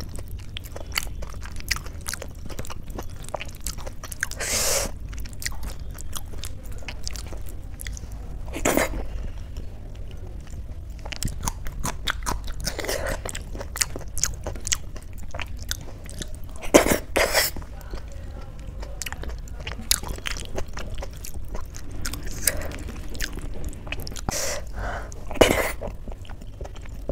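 Fingers mixing soft, sticky boiled rice and mashed potato on a steel plate, close up: a steady run of wet squishing and small clicks, with a few louder strokes scattered through.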